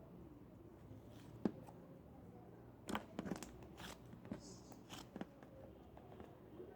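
Slime being squeezed and poked, giving a scattering of sharp clicks and crunchy pops: one strong click about a second and a half in, a cluster around three seconds, and a few more near the end.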